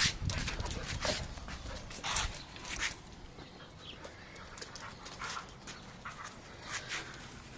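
Huskies playing together, with a run of short noisy dog sounds that is busiest and loudest in the first three seconds and sparser after that.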